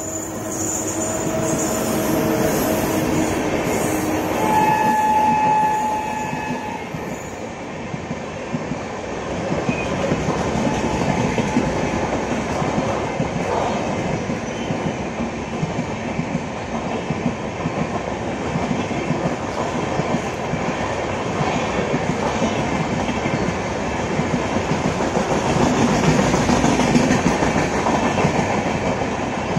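Indian Railways WAP-7 electric locomotive and its passenger coaches passing at speed, wheels rumbling and clacking over the rail joints. A short horn blast sounds about five seconds in, as the locomotive goes by.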